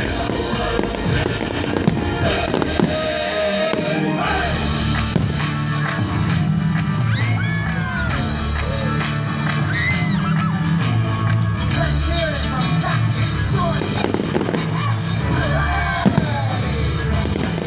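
Music with a sung voice over a steady bass line, played loud over a fireworks display, with firework bursts popping and crackling through it, the sharpest bangs about two and three seconds in and near the end.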